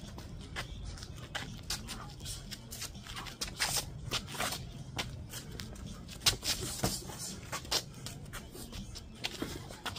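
Kickboxing sparring: irregular quick slaps and thuds of boxing gloves and shin guards landing, with feet shuffling on paving stones. The sharpest hits come a little past halfway.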